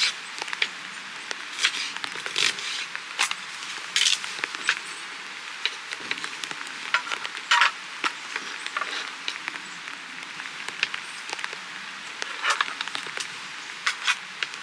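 Folding knife cutting on a cutting board: crisp, irregular cuts and taps as an onion is diced, then slicing through a block of canned luncheon meat.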